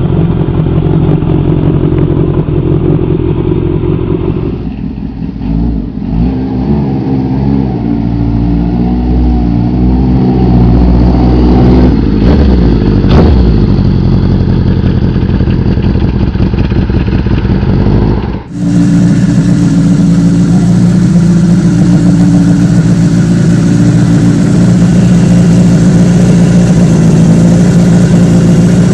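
Kawasaki ZR750 Zephyr's air-cooled inline-four exhaust, revved up and down several times. After a sudden cut about two-thirds of the way through, it holds a steady note.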